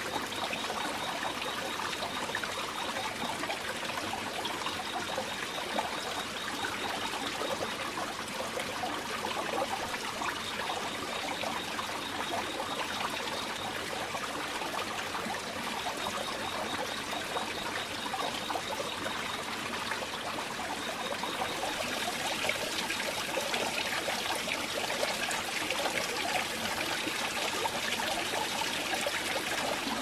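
Water running steadily out of a bamboo pipe and splashing into a pond, a continuous trickling pour. It turns brighter and more hissing about two-thirds of the way through.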